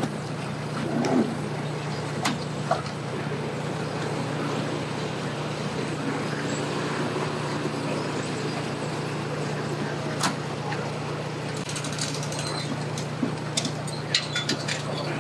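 Steady low drone of an idling pickup truck engine, with scattered clicks and light knocks that come more often near the end.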